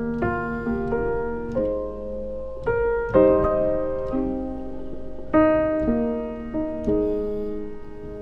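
Background music: slow, calm solo piano playing chords and single notes, each struck and left to ring out.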